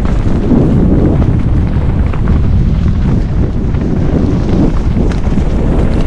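Loud, steady wind buffeting on the microphone of a camera riding a mountain bike trail, with a few faint knocks and rattles from the bike over rough ground.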